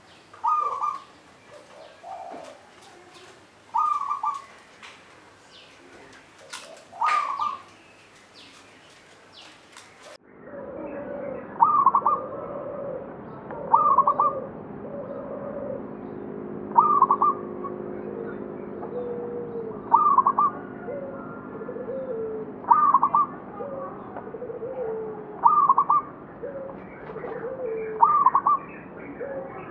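Perkutut (zebra dove) singing its cooing phrase over and over, one phrase about every three seconds, each a sharp high note and a lower note. About ten seconds in the recording changes abruptly, and a steady low hum sits under the calls for a while.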